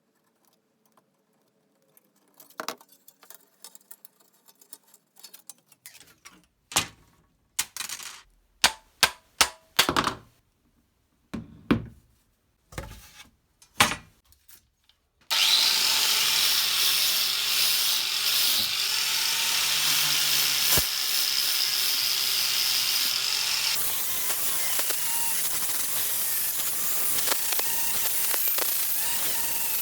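Scattered clicks, knocks and scrapes of tools and metal being handled, then about halfway through a power tool starts and runs steadily, working on the rusty handsaw.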